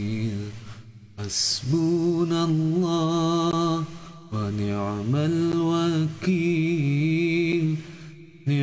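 A man's solo voice chanting Arabic zikir without accompaniment, drawing each word out in long held notes. There are short breaks for breath about a second in, about four seconds in, and near the end.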